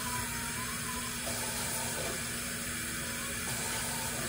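Water running steadily from a kitchen sink faucet into a bowl of rice.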